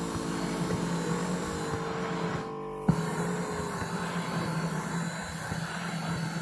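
Electric foot massager's motor and rotating massage nodes humming steadily, heard from a phone placed inside the massager. The hum drops out briefly about two and a half seconds in and comes back with a click.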